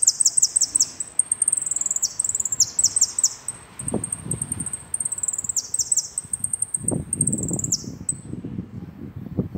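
Caged saffron finch (jilguero) singing: phrases of high, rapid trilled notes with falling sweeps, repeated several times and stopping a little before the end. Low rustling noise comes in around the middle and again near the end.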